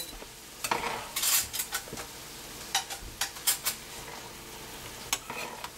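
A metal fork and spoon scrape and clink against a large frying pan as stir-fried ramen noodles are tossed, in short irregular clusters of taps and scrapes. A faint sizzle of frying runs underneath.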